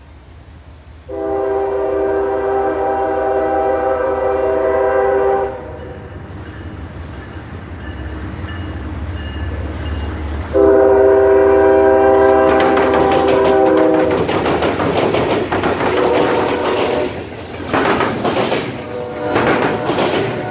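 Diesel locomotive air horn sounding two long blasts, a chord of several tones, as a Norfolk Southern double-stack intermodal train approaches. The low rumble of the locomotive builds between the blasts, then the train passes close by with loud rapid clattering of wheels over the rail crossing diamonds.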